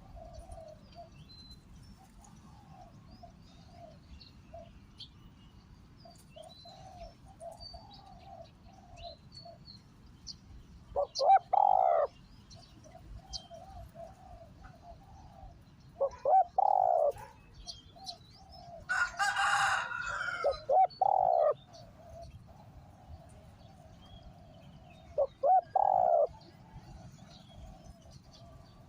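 Spotted dove cooing: four loud phrases a few seconds apart, with softer coos running between them and faint chirps of small birds above. A short rustling hiss comes just before the third loud coo.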